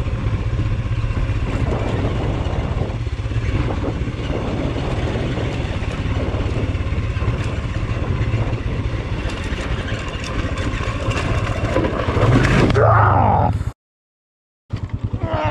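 Royal Enfield Himalayan's single-cylinder engine running at low speed on a rocky dirt track, with wind and tyre noise. Near the end the engine surges louder as the bike goes down, the sound cuts out for about a second, then the revs fall away steeply.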